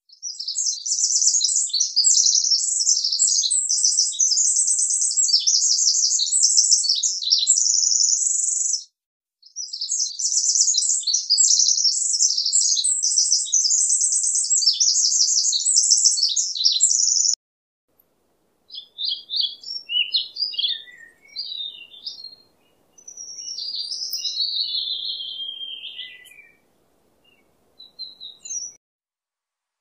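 Small songbird singing high, fast twittering trills in two long unbroken runs with a short break about nine seconds in, then sparser single chirps and short calls.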